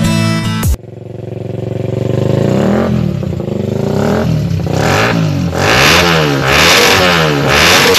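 Dubstep music cuts off under a second in. Then a Suzuki Raider 150's single-cylinder four-stroke engine, fitted with a loud aftermarket open exhaust, idles and is revved over and over. The revs rise and fall about once a second through the second half.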